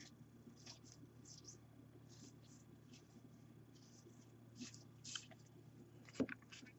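Faint swishes of baseball trading cards being slid one behind another in the hands, with a sharper click about six seconds in.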